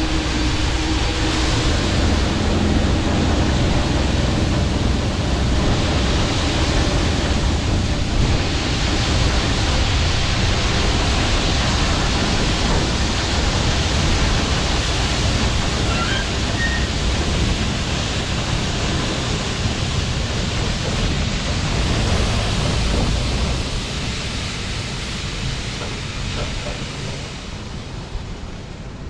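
Harvest machinery running, a steady loud rushing noise with a heavy low rumble, fading out over the last few seconds.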